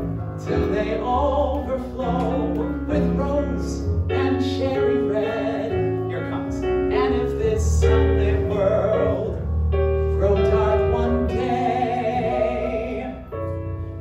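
A man singing a show tune over piano and bass accompaniment, one sustained melody line running over the backing.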